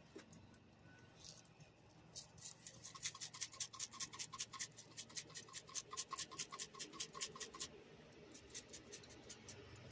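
Seasoning shaker jar being shaken over steaks, a fast faint rattle of about five shakes a second that starts about two seconds in.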